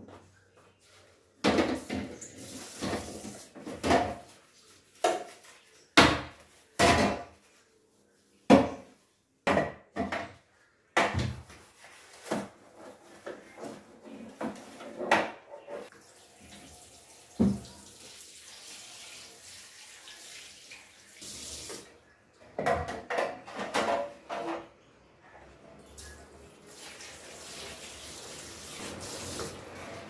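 A small refrigerator part being washed in a kitchen sink: repeated knocks and clatters as it is handled, with tap water running in stretches.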